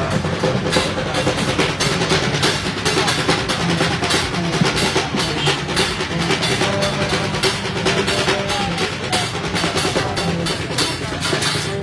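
Street band of large strap-carried drums beaten with sticks, playing a dense, steady rhythm.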